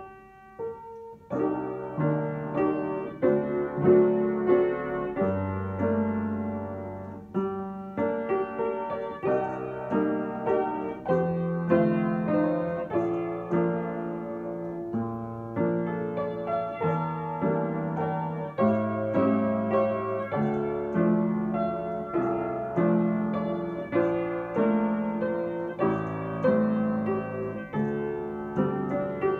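Upright piano played solo, a melody over low bass notes and chords, the notes struck one after another without a break. The playing is softer for a moment about a second in.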